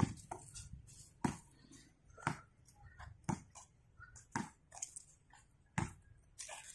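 A basketball bouncing on a hard outdoor court, about one bounce a second, with fainter light scuffs and clicks in between.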